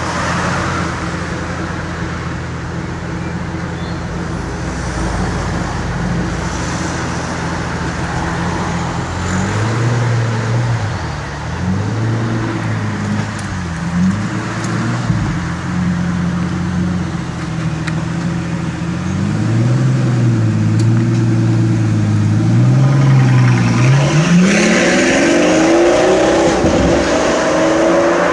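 Pagani Huayra's twin-turbo V12 idling steadily. It then rises and falls in pitch several times as the car pulls away slowly. Near the end it accelerates hard with a long rise in pitch.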